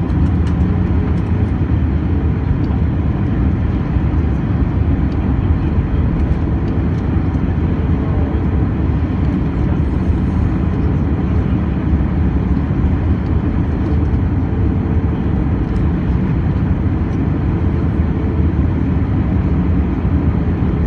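Airbus A319 cabin noise in flight: a steady low rumble of the engines and rushing air, with a faint hum on top.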